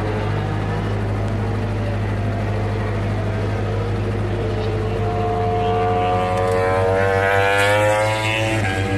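MotoGP bike's four-cylinder racing engine accelerating past. The engine note climbs steadily in pitch and grows louder over a few seconds, then drops sharply just before the end, over a steady low hum.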